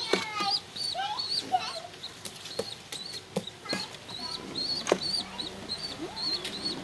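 Pigeon's wings flapping and brushing while it is handled, with scattered sharp knocks, the loudest a little before five seconds in. A steady high chirping repeats about three times a second underneath.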